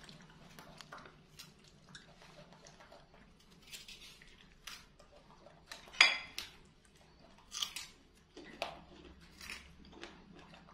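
A monkey chewing and biting into fruit, with scattered light clicks and clinks of a knife and dish; the loudest, a sharp click, comes about six seconds in.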